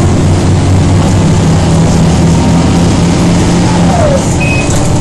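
Mercedes-Benz O405G articulated bus's diesel engine and ZF automatic gearbox pulling hard in second gear after a kickdown, heard from inside the cabin as a loud, steady drone with a gearbox howl. About four seconds in, a thin whine falls in pitch.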